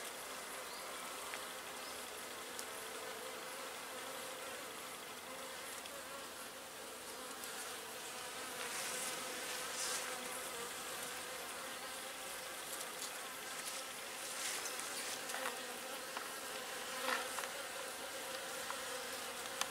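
Honeybees buzzing at the entrance of a wooden hive: a steady drone with individual bees gliding up and down in pitch as they fly past, and a few short crackles. The hive has just been moved to a new site, and the bees are making orientation flights, hovering back and forth in front of it.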